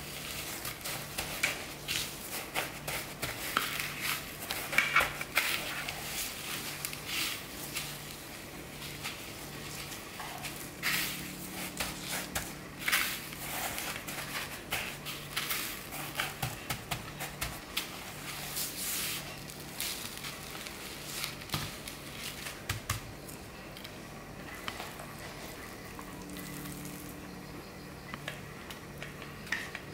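Hands pressing and turning pork cutlets in dry panko breadcrumbs on a metal tray: an irregular crunching and rustling of crumbs that thins out near the end, over a faint steady low hum.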